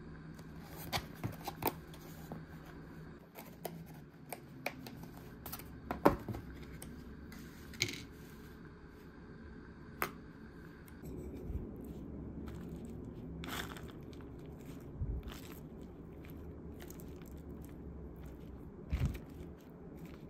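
Clear plastic salad container being handled and opened: a scatter of sharp plastic clicks and snaps, the loudest about six seconds in, then a rustle and a few soft knocks as the open tray is set down.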